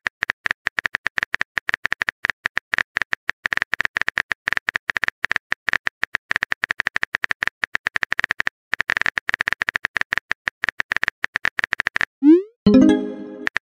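Rapid, irregular electronic blips with a steady high tone running through them, stopping about twelve seconds in, followed by a short rising glide.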